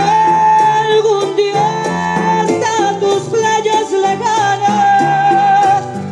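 Latin American dance music with singing over a stepping bass line and a steady beat.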